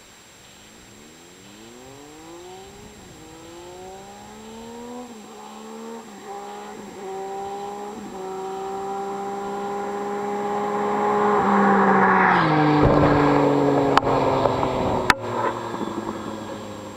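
Triumph Street Triple three-cylinder motorcycle with a quiet custom exhaust accelerating up through several quick gear changes as it approaches, its engine note climbing and dropping back with each shift. It passes close by with a drop in pitch and fades away, followed by two sharp clicks.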